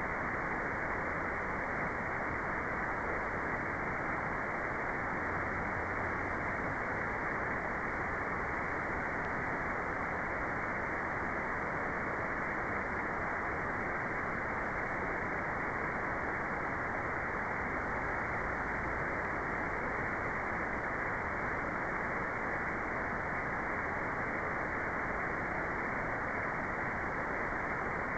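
Steady, unchanging white noise with the high hiss filtered out, giving an even, muffled rush.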